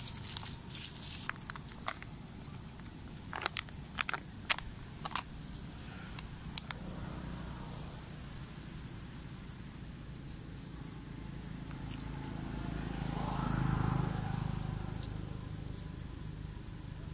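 A young macaque crunching and mouthing ice cubes among dry leaves, giving scattered sharp clicks and crackles during the first several seconds. A motor vehicle passes, swelling from about twelve seconds in, loudest near fourteen, then fading, over a steady high insect drone.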